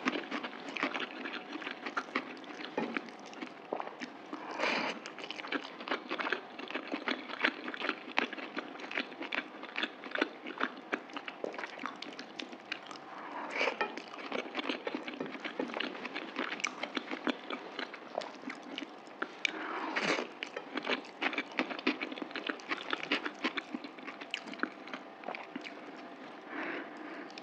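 Close-miked eating sounds of mutton curry and rice being chewed: a continuous stream of wet smacking clicks, with a louder burst about four times.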